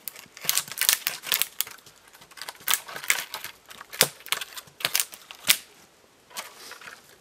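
Dry dead sapling being knocked over and pulled through snow-laden branches: an irregular run of sharp cracks and twig snaps, the loudest about four and five and a half seconds in, then a few fainter clicks.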